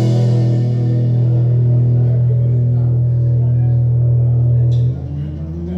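Live band's held final chord ringing out after a last drum hit: a steady low amplified note sustains and its brightness fades. About five seconds in it drops away and a rising slide in pitch begins.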